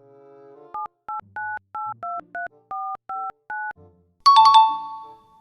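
Phone keypad tones as digits are typed in: about ten short two-tone beeps at an uneven typing pace. About four seconds in, a louder bright ringing chime, a few quick strikes that ring out and fade.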